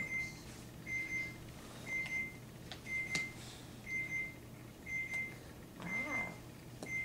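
An electronic beeper giving a short, steady, high-pitched beep about once a second, evenly repeated.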